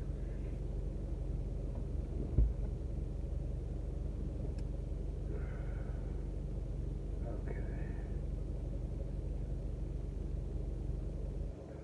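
Car engine idling steadily, a low even hum heard from inside the cabin, with a single thump about two seconds in.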